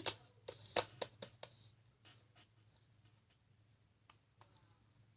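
A few faint, short clicks and taps of close handling, a quick run of them in the first second and a half and three more about four seconds in.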